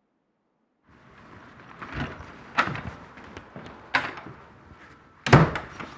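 A handful of knocks and thumps over faint room noise, four sharp ones, the loudest just over five seconds in.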